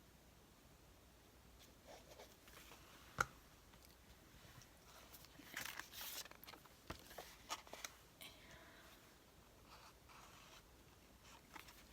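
Faint rustling and handling of paper, with a sharp click about three seconds in and a cluster of rustles and taps a little past halfway.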